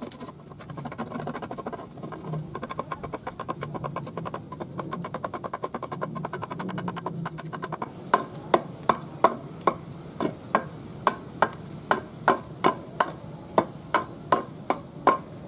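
Hand plane working the edge of a wooden board. For the first half it makes a rapid, scratchy shaving sound. About halfway through it changes to short, crisp wooden strokes, about two and a half a second.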